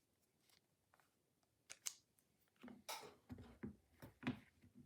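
Plastic clicks and knocks from handling the Bosch IXO cordless screwdriver's detachable head: a couple of sharp clicks about two seconds in, then a quick run of knocks and clicks over the next two seconds.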